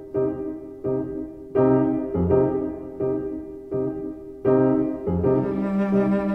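Background music: a piano playing slow chords struck about every three-quarters of a second, each fading before the next, with a sustained low note coming in under it near the end.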